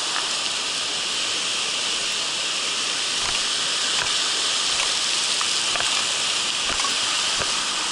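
Mountain stream water rushing over rocks: a steady, even hiss with a few faint clicks.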